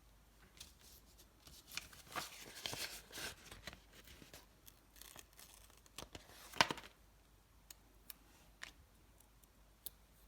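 Stickers being handled by hand, peeled from their backing and pressed down: small scattered clicks and crackly rustles. There is a longer crinkly stretch about two to three and a half seconds in and one sharp, louder peel or tear about six and a half seconds in.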